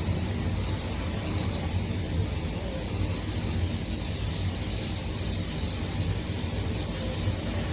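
Strong wind blowing steadily, a deep rumble under a hiss.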